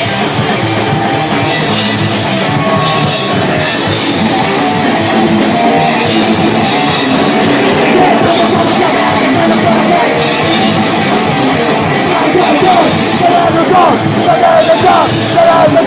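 Thrash metal band playing live, loud and dense: distorted guitars, bass and a pounding drum kit in an instrumental passage, with shouted vocals coming back in near the end.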